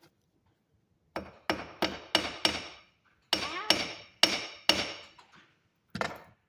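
Hammer striking copper wire on a metal surface: about ten sharp blows in quick runs of five, then four, then one, each with a brief metallic ring.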